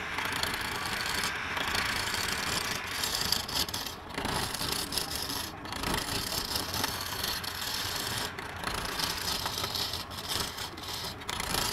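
Hand-held turning gouge cutting a spinning wooden blank on a homemade lathe: a continuous scraping hiss of shavings being peeled off, broken by several brief gaps as the tool eases off the wood, over the lathe's running motor.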